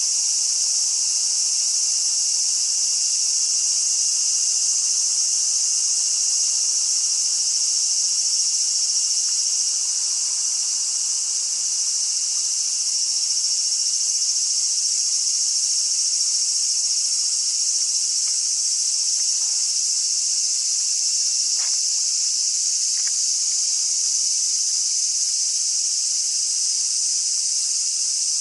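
A chorus of cicadas singing steadily and loudly, a continuous high hiss that does not let up.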